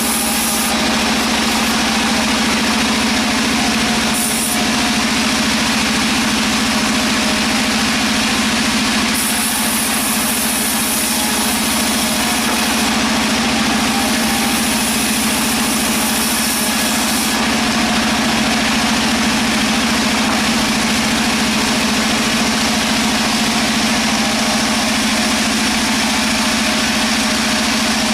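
Sawmill machinery running steadily: a constant, loud engine-like drone with an even, unchanging hum.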